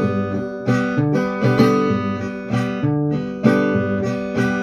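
Acoustic guitar strummed in a steady corrido rhythm, about two strokes a second, with bass notes and chords changing between verses of the song.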